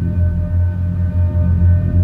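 Ambient soundtrack music: a deep bass drone that swells and dips, with a few soft held notes above it.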